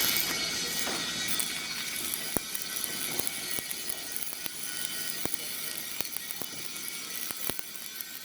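Stick-welding arc with a 1/8-inch 7018 electrode: a steady crackling sizzle with sharp scattered pops, loudest in the first second or so and then easing a little.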